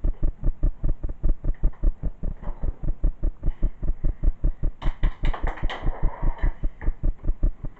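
Steady rhythmic low thumping, about four to five beats a second, from a glitch in the camera's audio. A quick cluster of sharp clicks and knocks comes about five seconds in.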